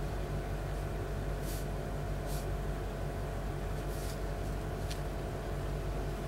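A steady low machine hum with several held tones runs throughout. Over it come a few brief, soft swishes from a calligraphy brush stroking across the paper, about 1.5, 2.5, 4 and 5 seconds in.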